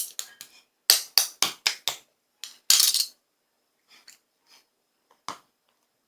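A series of sharp clicks and knocks. Five come in quick succession about a second in, then a short rattling burst, then a few fainter scattered clicks.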